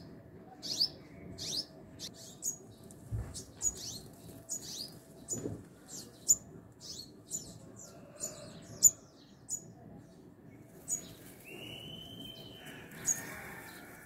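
Sunbird calling: a series of short, sharp, high chips, roughly one or two a second. Near the end a lower, drawn-out whistle rises and then holds, and there is one soft low knock about three seconds in.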